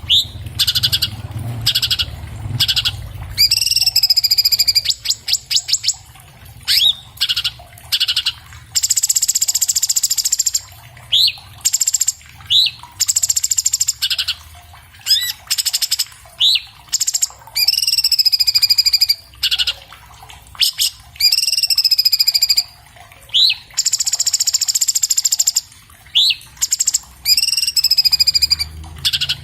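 Orange-bellied leafbird (cucak cungkok, Chloropsis hardwickii) singing a fast, varied song with barely a pause: high notes that sweep downward, stretches of rapid buzzy trilling, and short sharp upward-flicked notes repeated every second or so.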